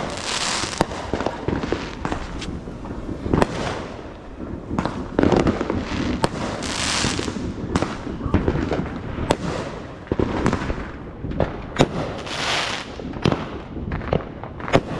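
Fireworks and firecrackers going off: many sharp bangs at uneven intervals, with three hissing bursts about a second long.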